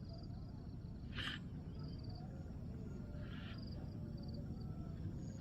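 Outdoor ambience of insects chirping in short, evenly pulsed high bursts over a low steady rumble, with a brief rustle about a second in and a softer one a little after three seconds.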